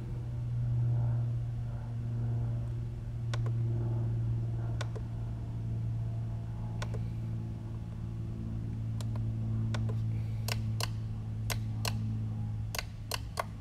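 A steady low hum, with sharp clicks of an RC radio transmitter's toggle switches being flipped to test them. A few clicks are scattered at first, then a quick run of clicks comes near the end.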